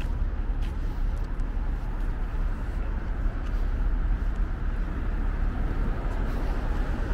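Steady city street traffic: cars and other vehicles running past with a constant low rumble.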